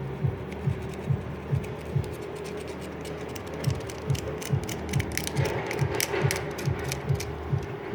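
Light clicks and scratching of small parts being handled, loudest from about the middle to near the end, over a steady low thump about twice a second and a hum.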